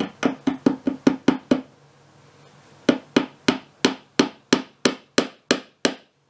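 Small hammer tapping an upholstery tack through fabric into the wooden frame of a dining chair seat: a quick run of light taps, about five a second, a pause of about a second, then a steadier run of taps about three or four a second.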